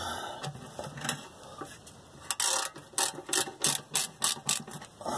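Ratchet wrench clicking in a quick run of about a dozen clicks, turning in a bolt on a transmission oil pan, starting a little after two seconds in.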